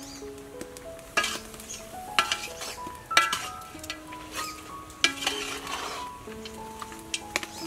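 Metal ladle stirring soup in a large metal cooking pot, clinking sharply against the pot about four times, with a short stretch of swishing hiss about five seconds in. A gentle instrumental melody plays throughout.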